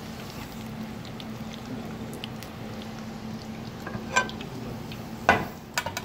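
Potatoes deep-frying in a pot of hot oil, a steady fine sizzle with scattered crackles over a low hum. In the last two seconds come three sharp clinks with a short ring, the second the loudest.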